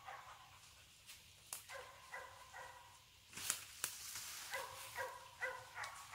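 A hunting dog giving short, repeated yelping barks in two quick runs, a few seconds apart, with a brief rustle in the middle.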